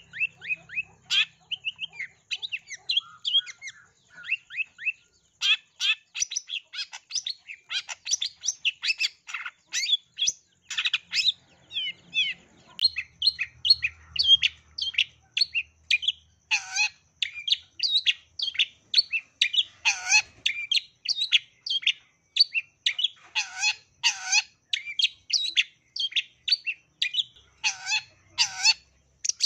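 Long-tailed shrike (cendet) singing a fast, unbroken stream of short chattering and chirping notes, several a second, a song full of mimicked calls. A few louder notes swoop sharply downward after the middle and again near the end.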